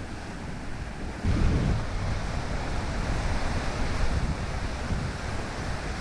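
Rough lake waves breaking and washing onto a pebble beach in high wind, with wind buffeting the microphone as a low rumble. The surf gets louder about a second in and stays so.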